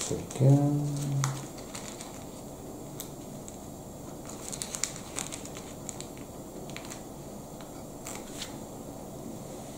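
Faint crinkling and scattered small clicks of a Lego sticker sheet being handled and a sticker peeled off. A short hummed voice sound comes about half a second in.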